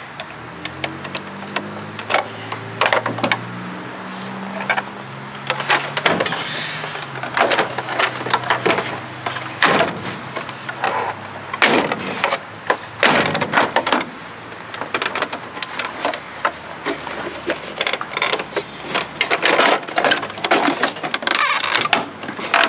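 Screwdriver prying and scraping at the plastic case of a computer battery-backup (UPS) unit, with irregular clicks, knocks and rattles as the case is forced and the unit is handled. A low steady hum sounds under it for the first few seconds.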